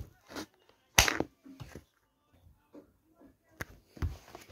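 A sneaker stomping down on a small object on a wooden floor, one sharp, loud hit about a second in, with a few lighter scuffs and taps around it. Near the end there is a click and a knock as a green plastic sanitiser cover is set down by hand.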